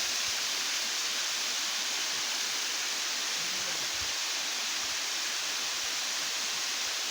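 Waterfall rushing, a steady hiss of falling water that does not change.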